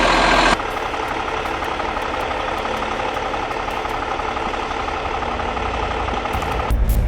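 A vehicle engine running steadily, an even drone with a faint hum.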